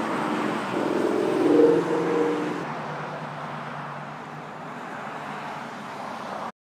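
A motor vehicle passes by, its engine note swelling and fading within the first few seconds over steady outdoor traffic noise. The sound cuts off abruptly near the end.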